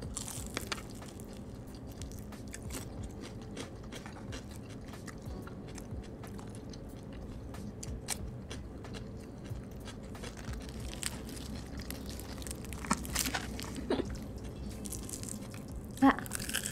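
Close-up eating sounds of crispy fried chicken: irregular sharp crunches as the coated skin is bitten, with chewing between them.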